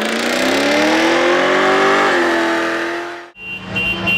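Ford Mustang engine revving hard in a burnout, its pitch climbing for about two seconds then holding high over a rushing hiss of spinning tyres. It cuts off sharply about three seconds in, and music with a beat starts.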